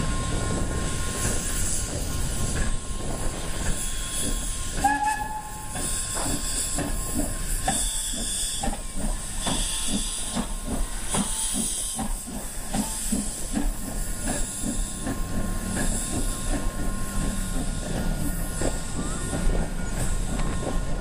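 Beyer, Peacock steam locomotive No. 120 pulling its train away: hissing steam with a regular beat of the moving train as the cars roll past.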